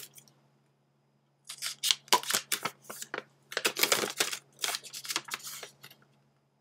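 Crinkling and rustling of a thin plastic wrapper and a paper leaflet being handled, in irregular bursts starting about a second and a half in and stopping about half a second before the end.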